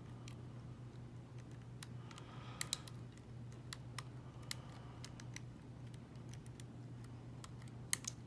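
Lock pick working the pins of a Falcon small-format interchangeable core (SFIC) cabinet lock: scattered, irregular light clicks. A steady low hum runs underneath.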